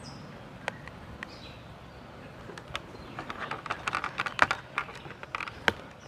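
Hands handling a motorcycle helmet and the clip-on cradle and wiring of a Bluetooth intercom: scattered small clicks at first, then a busy run of plastic clicks and rustles from about two and a half seconds in, the sharpest click near the middle.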